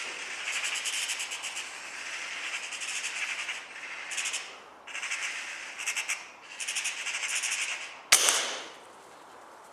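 Stretches of high, rapidly pulsing rasping hiss, then a single sharp shot about eight seconds in with a short ringing decay, the discharge of a spring-powered .177 air rifle.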